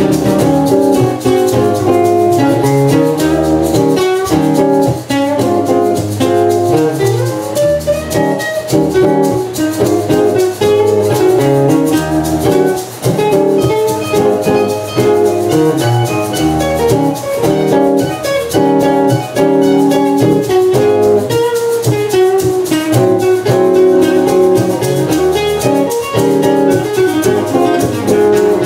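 Two acoustic guitars playing an instrumental passage together, with a steady strummed rhythm.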